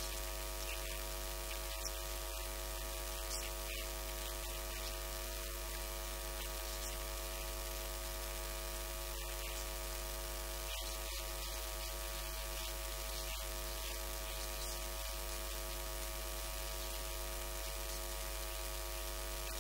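Steady electrical mains hum and buzz under a hiss of static, with no clear speech above it.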